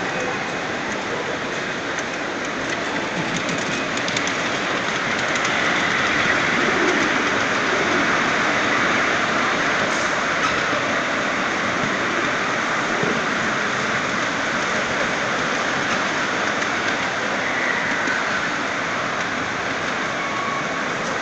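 Steady rolling noise of a 5-inch-gauge ride-on miniature train running along its steel track, a little louder about six to nine seconds in.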